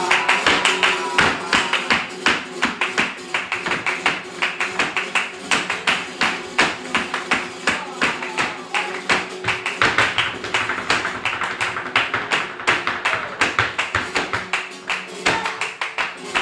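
Live flamenco: rapid percussive strikes of a dancer's footwork and palmas hand-clapping over a flamenco guitar.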